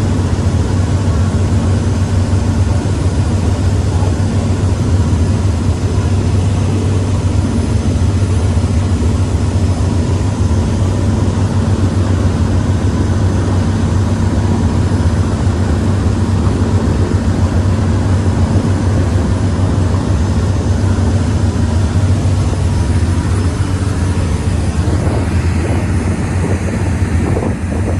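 Engine running steadily at constant speed: a loud, even, low drone with no change in pitch, with wind noise on the microphone.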